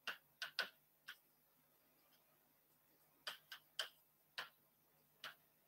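Faint, sharp clicks of a pen tip tapping against an interactive display board during handwriting, about nine taps in uneven clusters, several close together near the start and more a little past the middle.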